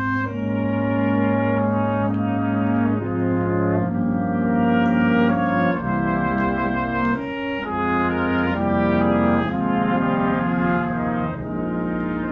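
Brass ensemble of trumpets, French horns, trombones and tuba playing sustained chords that change every second or so over a low held bass line.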